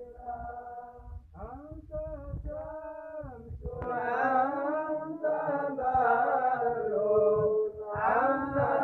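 A group of men chanting a devotional song in unison, with long held, melodic lines. It grows louder about four seconds in as more voices join or come nearer.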